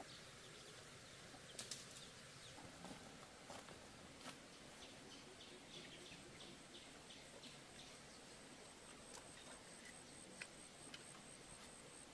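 Near silence: faint outdoor ambience with a few soft clicks, and from about the middle on a run of faint high chirps over a thin, steady, pulsing high trill.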